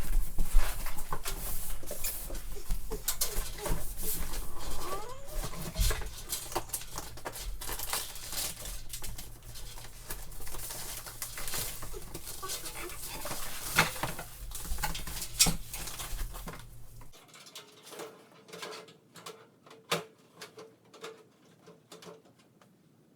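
Irregular clicks, knocks and light rattles from a power supply unit and screws being handled and fitted into a PC case. About seventeen seconds in, the sound drops to a quieter stretch of sparser clicks over a faint steady hum.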